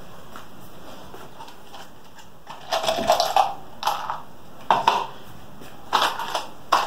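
A small clear plastic cup handled by hand: several short, irregular crinkling rustles and light clatters, beginning about two and a half seconds in.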